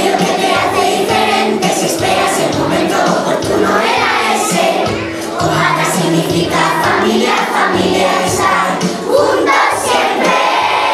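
A choir of primary-school children singing a song together over musical accompaniment.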